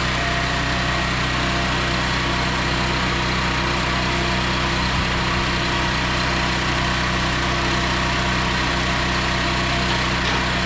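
Engine of an engine-driven welder-generator running steadily at a constant speed.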